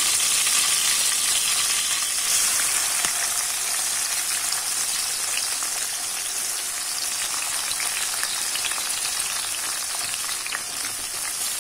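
Hot oil in a kadai frying a tempering of dal, dried red chillies and green chillies, with chopped onion going in early on; a steady sizzling hiss with small crackles throughout.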